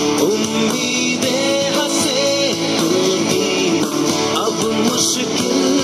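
Background music: a Hindi pop-rock song with guitar.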